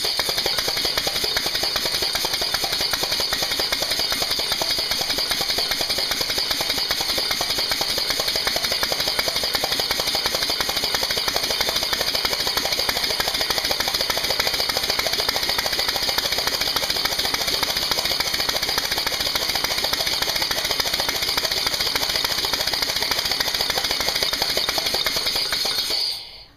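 Briggs & Stratton lawnmower engine converted to run on compressed air, running fast with a rapid chatter of air puffs from its open exhaust over a steady hiss of escaping air, since the engine still leaks. It stops suddenly shortly before the end.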